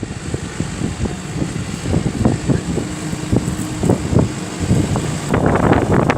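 Case 120 tractor running as it pulls a four-furrow reversible plough, heard through heavy wind buffeting on the microphone. The wind gusts get louder about five seconds in.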